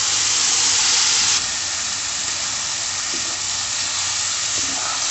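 Wet ground horse gram (gahat) dal paste sizzling as it hits hot tomato masala in an iron kadhai. The sizzle is loudest for about the first second and a half, then drops suddenly to a softer, steady sizzle while it is stirred.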